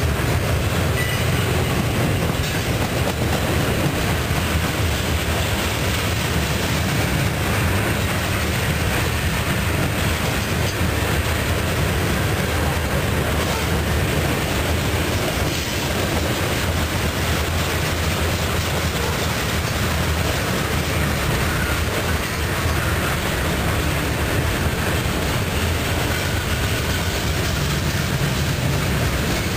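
Freight cars of a mixed manifest train (boxcars, covered hoppers and tank cars) rolling past: a steady low rumble of steel wheels on the rails.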